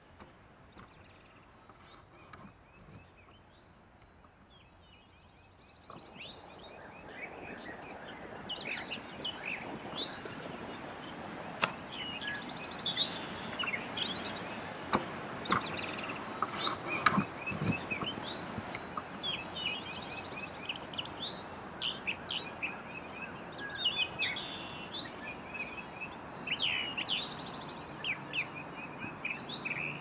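Many birds chirping and singing over a steady outdoor hiss, fading in about six seconds in after near silence, with a couple of sharp clicks in the middle.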